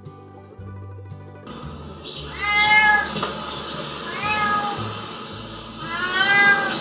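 Domestic cat meowing three times, each meow rising then falling in pitch, the middle one shorter. Light plucked-string background music plays at first and cuts off about a second and a half in.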